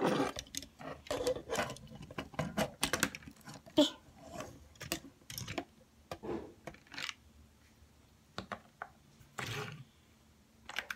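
Plastic LEGO pieces of a Hulkbuster model clicking, tapping and knocking as they are handled and fitted together, in irregular bursts, with a brief rustle about nine and a half seconds in.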